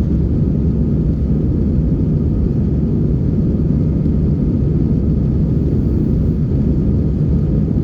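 Steady, loud low rumble of an airliner's engines and airflow, heard from inside the passenger cabin.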